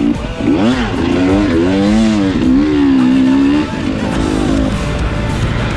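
Motocross dirt bike engine revving hard from on the bike, its pitch sweeping up and down as the throttle is worked and gears change. About two-thirds of the way in the revs drop off and it goes on more quietly under wind and track noise.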